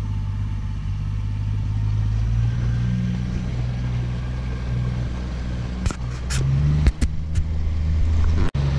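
A small boat's outboard motor running under way, a steady low rumble, with a few sharp clicks near the end.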